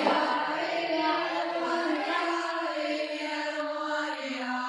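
Background music: a choir singing long held notes.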